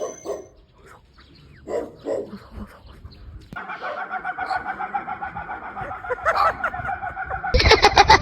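Chicken-like calls: a few short clucks, then a long, steady, rapidly pulsing clucking call, then a much louder rapid squawking starting near the end.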